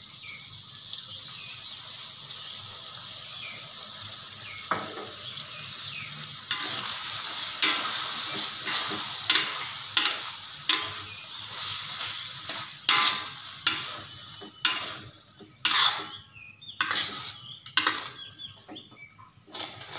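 Fish cake and chilli paste in sweet soy, chilli and oyster sauces sizzling in a hot aluminium wok, stirred with a metal spatula. The sizzle is steady at first and grows louder about a third of the way in. Through the second half the spatula scrapes and clacks sharply against the wok, a dozen or so times.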